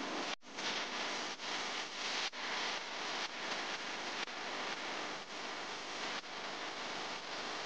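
Steady hiss of tyre and road noise from a car driving along a paved road, with a brief dropout about half a second in.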